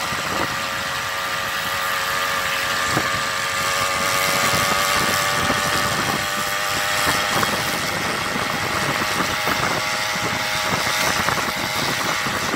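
Small 330 grass-cutter engine fitted to a bicycle, running steadily under way with a high, buzzing note. Its pitch creeps up a little over the first few seconds and then holds.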